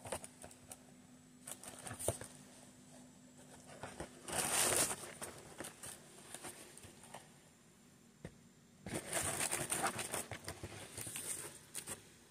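Food packaging crinkling and rustling as fried chicken wings are handled and taken out, in two bursts about four and nine seconds in, with scattered small clicks between them.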